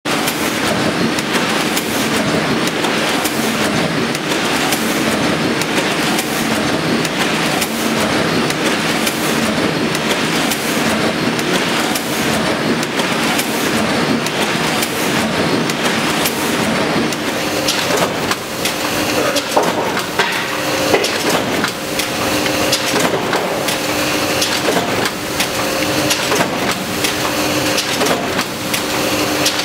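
Print-shop machinery running: a printing press making a dense mechanical clatter with a regular beat about once a second. A little past halfway, a humming tone starts to come and go over the clatter as printed sheets feed through a paper-handling machine.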